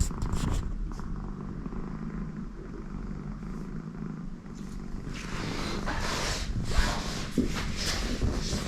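American Shorthair cat purring steadily. From about five seconds in, rustling and scraping noises rise over the purr.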